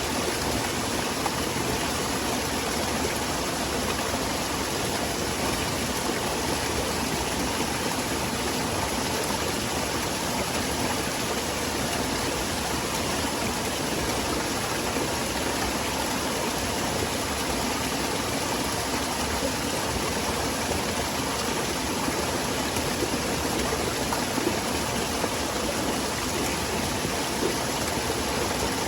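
Small waterfall on a forest stream, water falling and rushing in a steady, even splashing noise.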